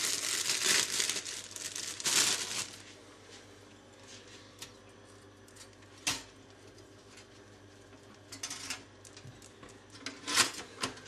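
Kitchen handling noises while toast is being made: crinkling and rustling for the first few seconds, a single sharp click about six seconds in, then more rustling and clatter near the end as bread slices go into a toaster.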